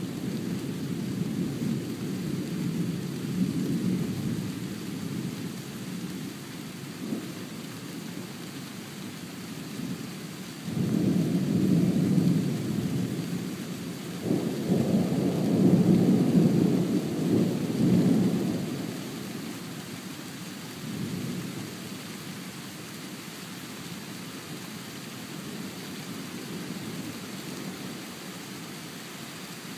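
Thunder rumbling over steady rain. Two louder peals of thunder break in sharply about a third of the way through and again a few seconds later, then the rumble dies away to the rain.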